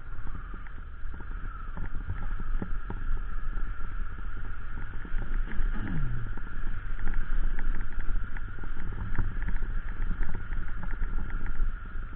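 Motorcycle riding over a rough, stony dirt track: the engine running under a steady whine, heavy wind rumble on the camera microphone, and frequent knocks and rattles from the bumps. About six seconds in, a short falling tone.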